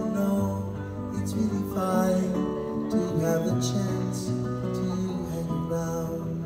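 Live solo performance: a classical guitar being played, with a man singing along into a microphone.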